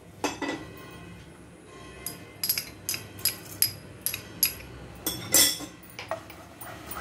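A metal spoon clinking and tapping against kitchen utensils as spice is spooned into a wok of oil: about ten short, sharp clinks, the loudest about five and a half seconds in.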